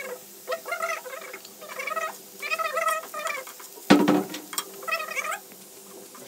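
A cat meowing repeatedly, about six or seven short pitched calls. About four seconds in there is a sharp clank, fitting the steel spatula striking the iron pan while the potatoes are stirred.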